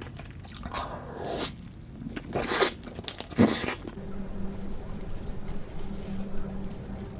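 Close-miked eating sounds of chocolate cake: a few crunchy bites and chews in the first half, then softer wet chewing over a steady low hum.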